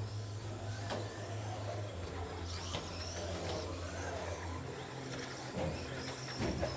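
Electric RC racing trucks running laps. Their motor whines rise and fall as they accelerate and slow, with a few brief knocks, over a steady low hum.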